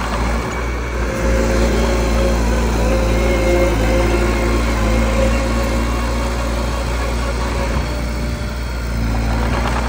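Heavy-equipment diesel engine running steadily: a deep rumble with a higher tone that wavers in pitch.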